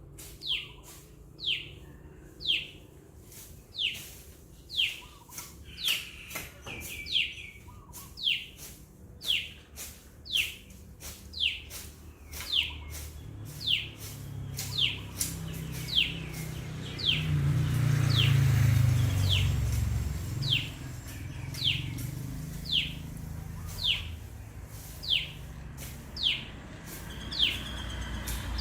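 Common tailorbird calling: one sharp, falling note repeated about once a second. Partway through, a low rumble swells and fades, loudest around the middle.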